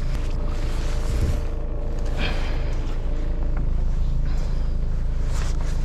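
A sailboat's engine running steadily in a low hum, with a few light knocks from the mooring line and deck gear being handled about two seconds in and near the end.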